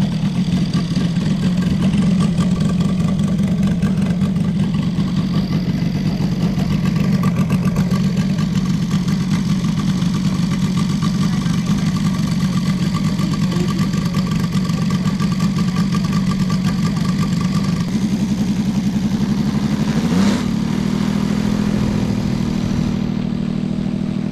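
Saito FG60R3 three-cylinder four-stroke gas radial engine of a giant-scale RC P-47 idling steadily on the ground. About 18 seconds in its note changes, with a short blip of throttle a couple of seconds later.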